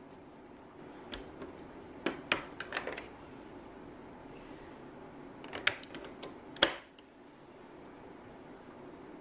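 Plastic battery-compartment cover on the underside of a CASIO LK-520 keyboard being unclipped and clipped back on: a cluster of sharp clicks about two seconds in, and another a few seconds later ending in the loudest snap.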